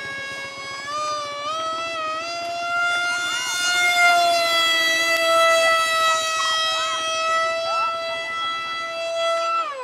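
Electric motor and fan of a radio-controlled foam Su-27 model jet, a steady whine in flight. Its pitch steps up slightly twice early on, holds, then drops sharply near the end.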